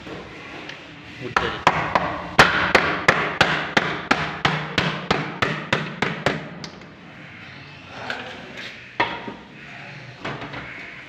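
Soft-faced mallet tapping a uPVC glazing bead into the window frame to clip it in over the glass: a quick run of sharp knocks, about four a second, for some five seconds, then two single knocks near the end.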